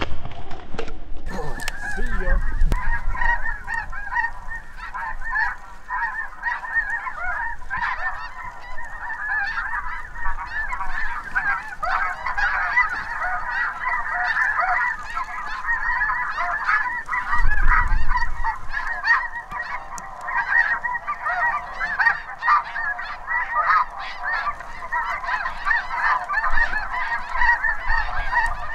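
A large flock of snow geese calling: many high honks overlapping into a constant chatter. A short low thump about two-thirds of the way through.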